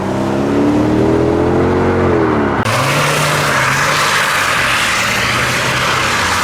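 Modified car's engine revving as it pulls away, its pitch rising and then dropping. About two and a half seconds in, a loud hissing noise sets in abruptly over a lower engine note.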